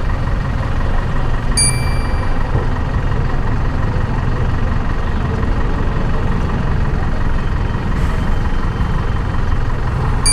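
Stopped city traffic idling: a steady low rumble of motorbike, scooter and auto-rickshaw engines running at a junction. A single ringing ding sounds about a second and a half in.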